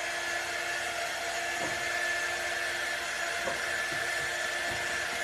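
Small handheld craft heat tool running steadily, its fan blowing hot air in an even whirr with a faint hum, drying freshly applied ink on a cotton towel.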